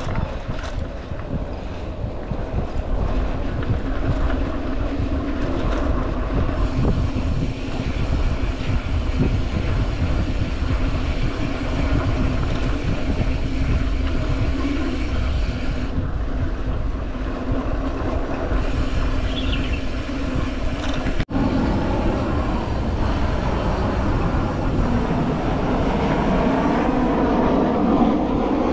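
Wind buffeting the microphone of a mountain bike rolling along a dirt trail, a steady rumbling noise.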